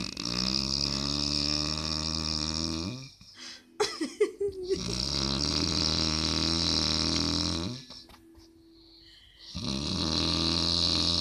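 A person snoring loudly in deep sleep: three long, rattling snores of about three seconds each, coming roughly every five seconds, with a few short mouth clicks between the first two.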